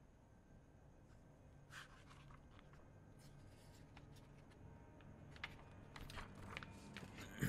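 Faint rustling and crackling of magazine pages being handled and turned, starting about two seconds in and getting busier near the end.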